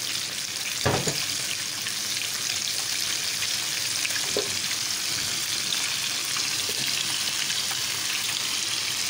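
Breaded onion rings deep-frying in hot oil in a frying pan: a steady crackling sizzle, with a light knock about a second in.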